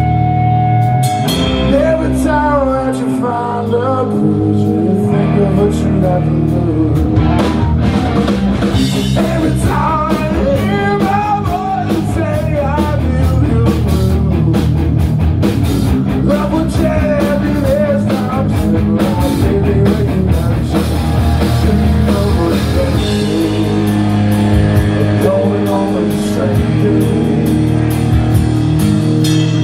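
Punk rock band playing live through a small club PA: electric guitars, bass and drum kit with a male lead vocal. A single held note opens, then the drums and the full band come in about a second in.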